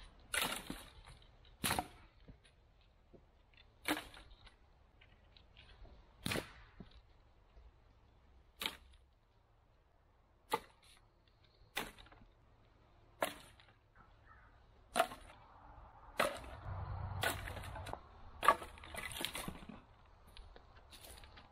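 Sticks of firewood being snapped by hand: about fourteen sharp cracks, one every one to two seconds, with rustling of the branches in the last few seconds.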